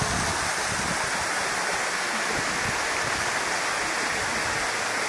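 A steady rushing hiss of running water that holds level throughout.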